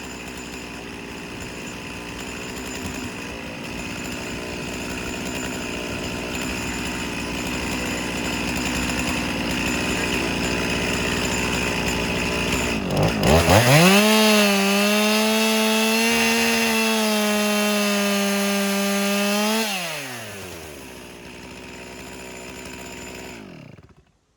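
Stihl MS362 two-stroke chainsaw in an Alaskan chainsaw mill ripping through a walnut log under load, then running free at full throttle with a clean high steady note as it comes out of the cut. About 20 seconds in the throttle is released and it falls to idle, then it is shut off near the end.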